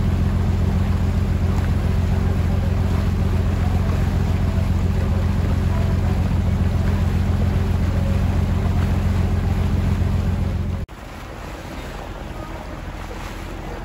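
A boat's engine drones steadily as the boat moves, with the rush of water and wind over it. The drone stops abruptly about eleven seconds in, leaving a quieter hiss of wind and water.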